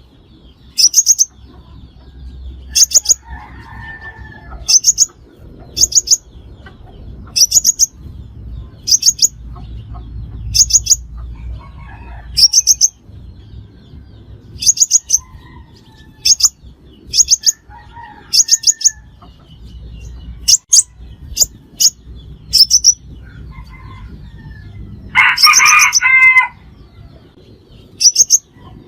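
Sunbird calling: short high chips in quick clusters of three or four, repeated about every second and a half, with a louder, lower trilled phrase near the end.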